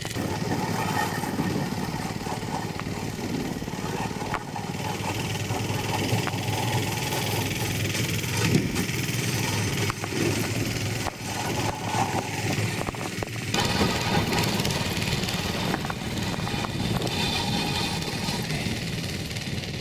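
Small engine of an ice sled running steadily, driving a wheel at the rear that pushes the sled across the ice. It is loudest around the middle, as the sled passes close by.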